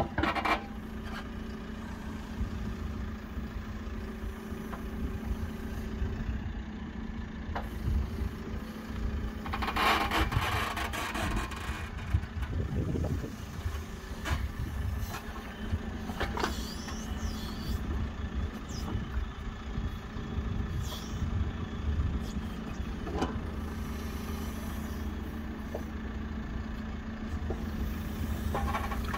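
Backhoe loader's diesel engine running steadily while its arm works the bucket, with a louder noisy burst of digging and hydraulic sound about ten seconds in.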